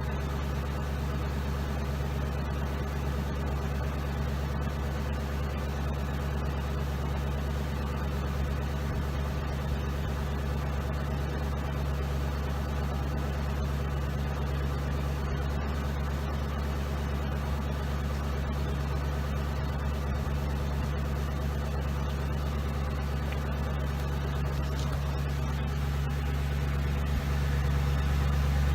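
2007 Ford Crown Victoria's 4.6-litre V8 idling steadily during a test run after misfire repair work, growing a little louder near the end.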